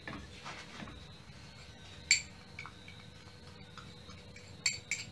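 A glass bowl clinking against the rim of a metal non-stick pan as powdered sugar is tipped and tapped out of it: one sharp clink about two seconds in, then two more close together near the end. A faint steady hum sits underneath.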